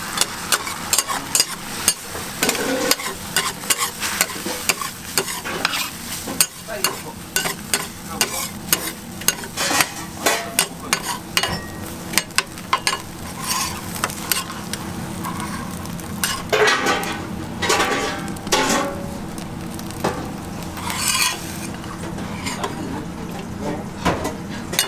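Metal spatulas clacking and scraping on a steel flat-top griddle as beaten egg is scrambled and folded, over the steady sizzle of the egg frying. Rapid clacks fill most of it, giving way to a few longer scrapes and then thinning out near the end.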